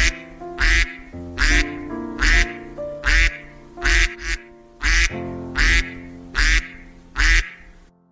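A duck quacking again and again, about one quack a second, over a steady background of children's music with held keyboard notes.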